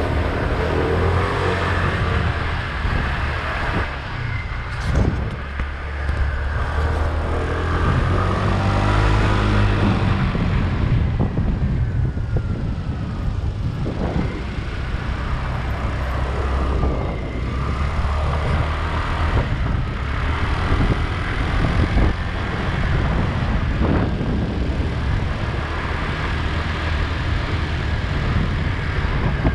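Motor scooter riding along a road: its small engine runs steadily under rushing wind and road noise.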